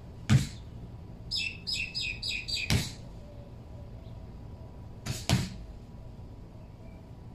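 Boxing gloves punching a hanging rubber tyre: a sharp thud near the start, another just before three seconds, and a quick double hit about five seconds in. Between the first two punches a bird chirps a fast run of high notes for over a second.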